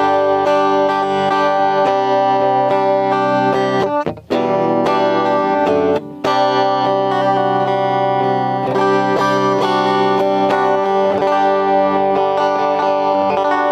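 JCraft S1H electric guitar played clean through an amp, with ringing, sustained chords and single notes and the tone control fully open. The playing breaks off briefly about four and again about six seconds in.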